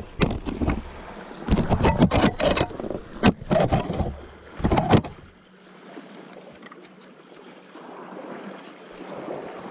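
Wind buffeting the microphone in loud, irregular gusts for about five seconds, then dropping to a quieter steady rush.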